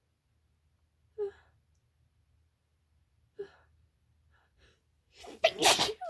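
A woman's sneeze: short catching gasps about a second in and again past three seconds, then one loud, forceful sneeze near the end. She is sick with a cold.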